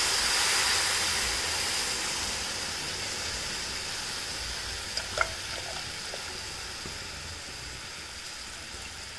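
Jaggery water poured through a tea strainer into a hot pan of ghee-roasted makhana powder, sizzling and hissing as it hits the pan. The sizzle slowly dies down, with a couple of faint clicks about five seconds in.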